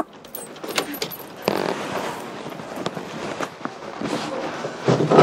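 A sharp knock, then scattered clicks and rattles from a metal-framed glass-paned door as it is opened, over a steady hiss of background noise.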